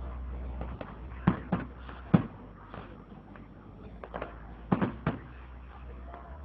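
Fireworks shells bursting in the air: irregular sharp bangs, three about a second to two seconds in and a tight cluster around five seconds in, with quieter pops between.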